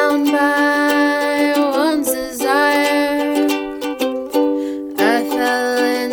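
Ukulele strummed in a slow rhythm, a fresh strum about every two seconds, with a voice holding long notes over it that bend at their ends.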